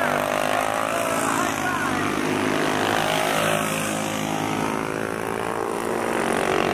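Several racing lawnmower engines running hard together around a dirt oval, their pitch shifting slightly up and down as the mowers circle.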